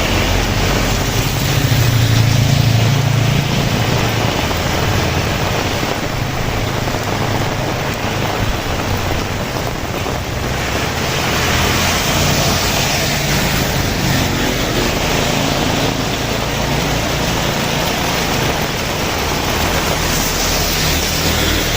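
Heavy rain falling steadily as a dense, even hiss. A motor vehicle's engine rumbles low in the first few seconds, then fades under the rain.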